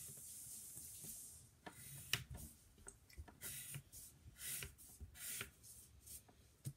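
Pencil scratching on paper in a run of short, irregular strokes, faint.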